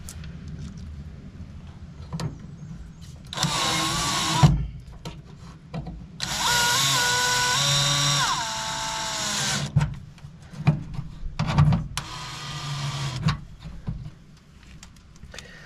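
DeWalt cordless drill driving screws through the 7-pin outlet's mounting plate into the truck bed's sheet metal, in three runs. The first is short, and the longest comes about six seconds in; its whine steps down in pitch partway through as the screw takes load. Clicks of the bit and handling fall between the runs.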